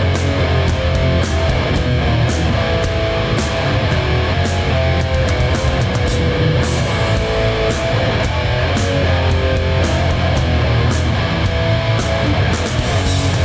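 Hardcore band playing live, loud and steady: distorted electric guitars and bass over drums with regular cymbal and snare hits.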